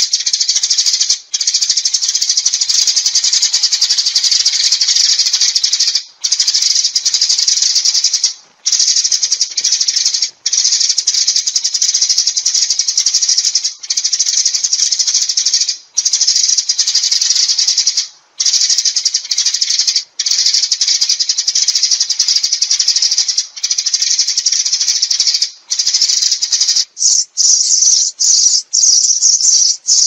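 Eurasian tree sparrows chirping and chattering in a dense, high-pitched stream, broken by short gaps every couple of seconds; near the end the chatter breaks into quicker, separate chirps. It is the sparrow flock-gathering call used as a lure.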